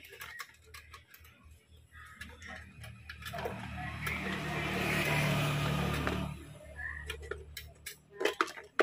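Small clicks and taps of plastic and metal parts and wires being handled on a rice cooker's base. Through the middle, a passing motor vehicle: a low hum and rush that swells up and fades over about four seconds, the loudest thing heard.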